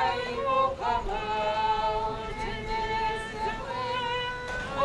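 Voices singing a hymn together in long held notes, the higher voices most prominent.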